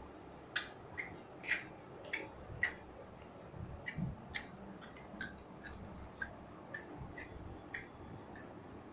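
A series of short, sharp clicks at irregular spacing, roughly two a second, some with a brief bright pitch.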